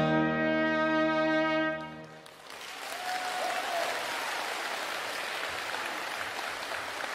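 Trumpet holding the final note over a piano chord, which ends about two seconds in; then the audience applauds steadily.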